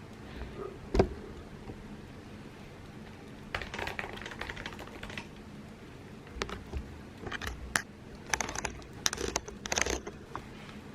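Typing on an Apple keyboard: a single sharp click about a second in, then two runs of quick, irregular key presses.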